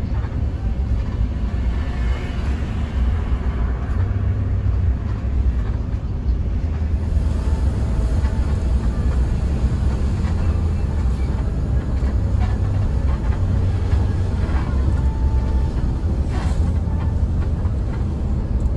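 Steady cabin noise inside a moving Mercedes-Benz OH1526 bus: a continuous low engine and drivetrain rumble with road noise over it.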